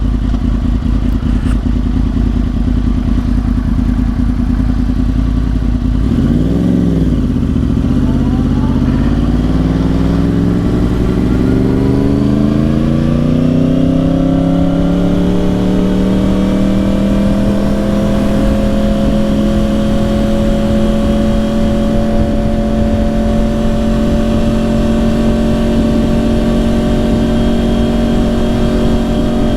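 2010 Yamaha R1's crossplane inline-four through dual Yoshimura exhausts, under way: a steady hum, a quick rev up and down about six seconds in, then the engine note climbing gradually for several seconds before holding steady at cruise.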